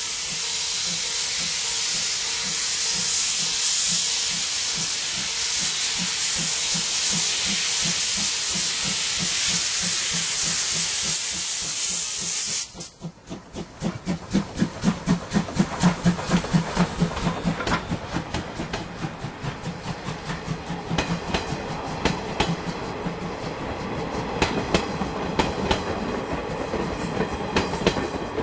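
JNR Class C12 tank steam locomotive C12 66 pulling out: a loud steady hiss of steam cuts off suddenly about 12 seconds in, and a moment later exhaust chuffs start at about three a second as it gets under way. The beats then grow weaker as the train draws away, with sharp clicks among them near the end.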